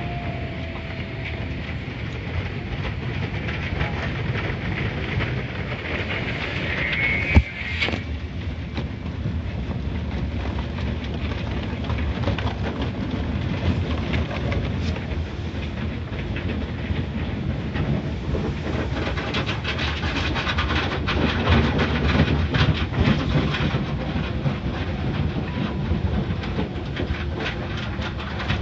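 Automatic car wash heard from inside the car: brushes and water spray rumbling and swishing steadily over the body and glass. A sharp knock comes about seven seconds in, and many quick taps come through in the second half.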